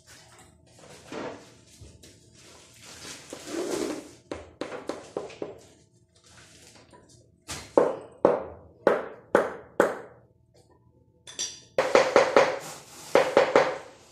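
Hand tool knocking on ceramic floor tiles being relaid on a mortar bed: some scraping at first, then five sharp taps about half a second apart, and near the end a quicker run of taps.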